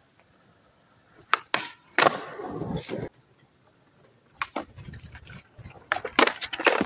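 Skateboard tricks on concrete. Two sharp clacks, then the deck sliding along a metal flat rail for about a second before it cuts off. Later the wheels roll on concrete, followed near the end by another pop, several loud clacks of the board and a short scrape.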